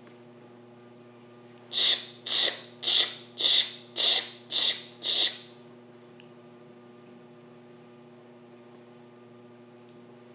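Sawing sound: seven rhythmic rasping strokes about two a second, each sharp at the start and fading, lasting about four seconds, as a saw cuts through a tree.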